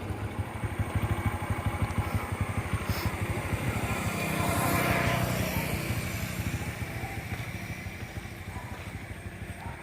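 Motorcycle engine idling with a steady low pulsing, while a passing vehicle's noise swells and fades about halfway through.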